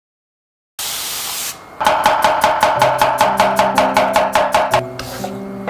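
Chinese cleaver rapidly slicing a peeled raw potato into thin slices on an end-grain wooden cutting board, about five quick even chops a second. The chopping starts about two seconds in and pauses briefly near the end. A short hiss comes just before it.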